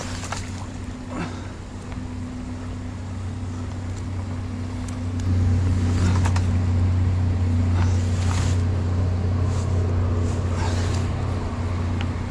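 A steady low drone that gets louder about five seconds in, over scattered brief splashes and rustles from a rake on a long extension pole working at a beaver dam and its built-up grass in the water.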